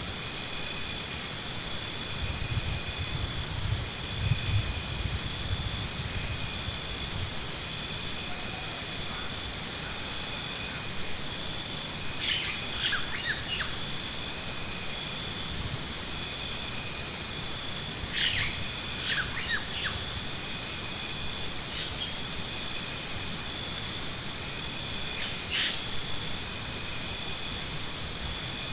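Insect chirping: steady high pulsed trills, with a louder run of rapid chirps every several seconds lasting a few seconds each. Several short, sharp chirps about halfway through and again near the end.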